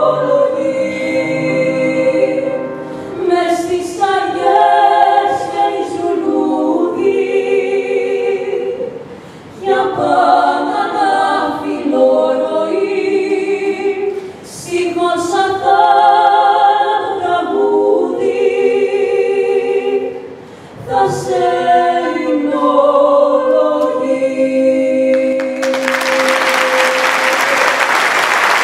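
Three female voices singing in close harmony, phrase by phrase with short breaks, ending on one long held note. Audience applause breaks out near the end.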